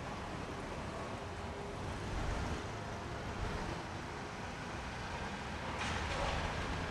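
Steady low mechanical rumble, with a short hiss about six seconds in.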